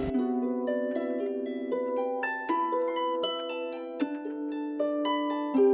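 Background music: plucked, harp-like notes in a gently moving pattern, several notes at a time.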